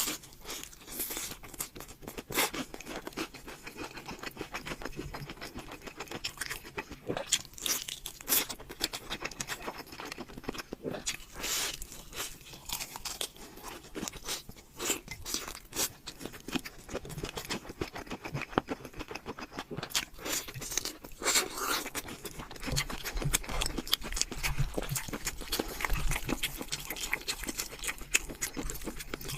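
Close-up crunching and chewing of crispy fried chicken: irregular crisp crunches from bites into the fried coating, with chewing in between.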